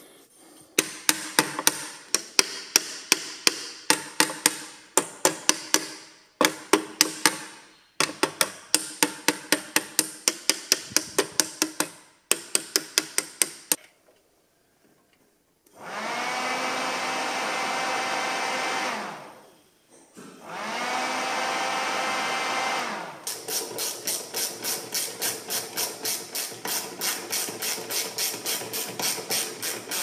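Rapid bursts of light knocks, about four or five a second, tapping on the Hyundai H1's intercooler fan to free a motor that had stuck. Then the small electric intercooler fan, wired directly to the battery, spins up with a rising whine, runs steadily for a few seconds and winds down, twice, showing it turns again. Near the end a ratchet wrench clicks rapidly.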